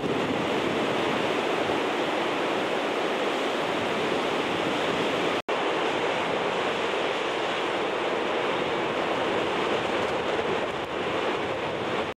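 Dynjandi waterfall: steady rushing of falling water, cutting out for an instant about five and a half seconds in.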